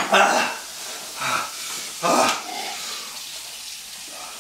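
A man's pained, breathy gasps and groans in three short outbursts, his reaction to the burn of extremely spicy food.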